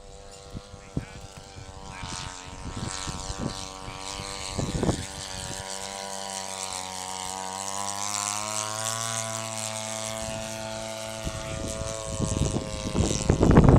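Radio-control model airplane engine driving its propeller in flight, its note shifting slowly in pitch and growing louder as the plane comes round. A louder rush of noise comes in near the end.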